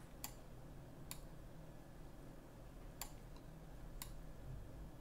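Four sharp computer mouse clicks, unevenly spaced, over a faint steady low hum.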